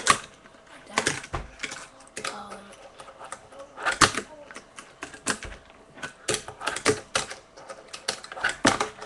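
Tech Deck fingerboard clacking on a hard surface: sharp, irregular clicks of the tail popping and the wheels landing as ollies and kickflips are tried, about a dozen of them, coming closer together in the second half.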